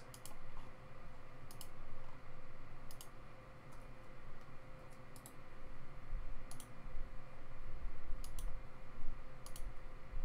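Computer mouse buttons clicking, a short sharp click every second or two, over a faint steady hum.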